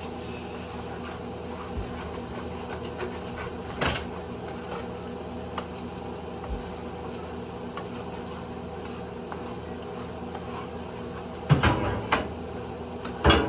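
Seasoned taco meat simmering steadily in a pan on the stove. A sharp clink about four seconds in, and a few clattering knocks near the end, from a utensil or the pan.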